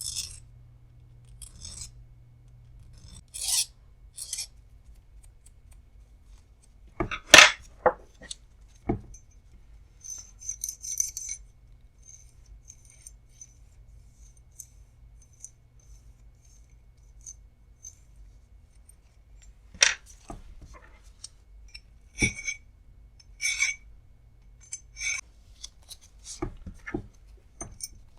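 Hand file rasping in short strokes across the corners of small metal vise parts, chamfering them. The strokes come a few at a time with pauses between. A few sharp metal knocks about seven seconds in are the loudest sounds.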